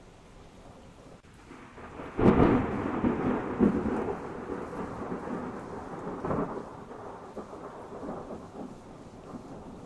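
Thunder over a steady hiss of rain: a sharp clap about two seconds in that rolls on and slowly fades, with a second, smaller crack about six seconds in.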